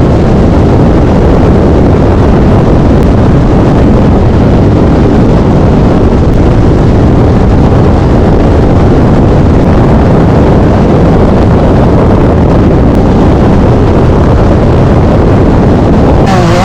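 Can-Am Maverick R side-by-side running hard at racing speed: a loud, steady rumble with no clear engine pitch, with wind buffeting the microphone.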